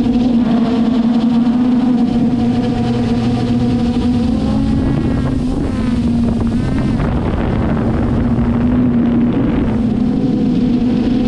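Traxxas Aton quadcopter drone's electric motors and propellers whining steadily. The pitch wavers and glides about halfway through as the motors change speed.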